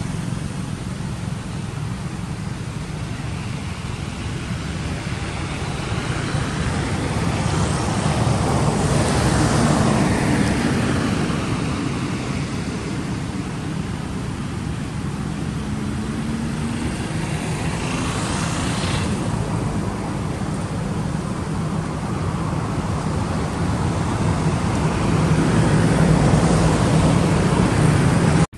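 Road traffic: a steady low rumble of motor vehicles, swelling as vehicles pass about a third of the way in and again past the middle.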